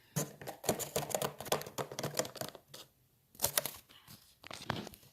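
Rapid clicking and tapping of small plastic toy figures knocking on a hard surface, in a dense run for the first few seconds, then two short clusters.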